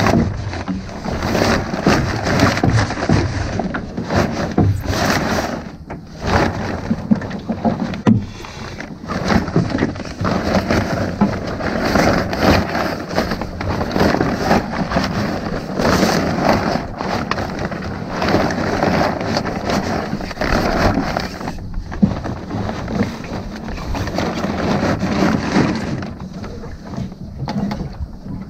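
Wind buffeting the microphone over the irregular crackle and rustle of a small boat's mainsail cloth being gathered by hand onto the wooden boom as the sail comes down.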